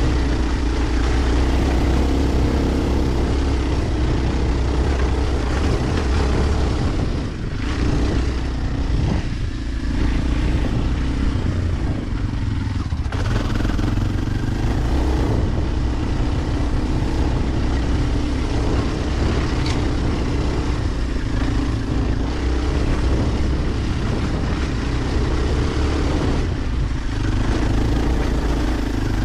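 Kawasaki KLX 230's air-cooled single-cylinder four-stroke engine running steadily under way, the throttle easing off briefly a few times, about a quarter, a third and nearly halfway in, and then picking back up.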